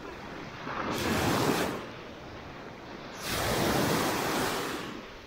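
Sea surf: waves washing up onto the beach in two swells, the second about two seconds after the first and longer, over a steady background hiss.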